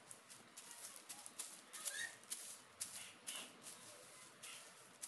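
Soft grass broom sweeping a glazed tile floor: short swishing strokes, about two a second and unevenly spaced.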